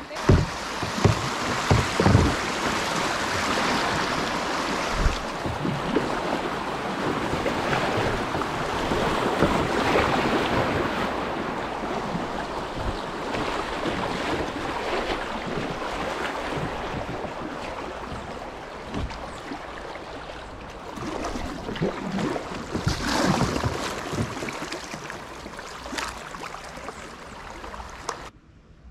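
Steady rush of moving river water around a kayak, with a few brief louder hits; it stops abruptly near the end.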